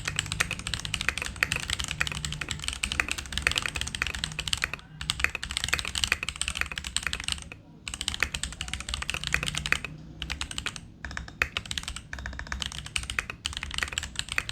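Fast typing on an Akko Top75 aluminum top-mount keyboard with lubed Gateron Baby Kangaroo tactile switches on a brass plate and DCS keycaps: dense, rapid keystroke clacks. There are short pauses about five and eight seconds in, and a few brief gaps a little after ten seconds.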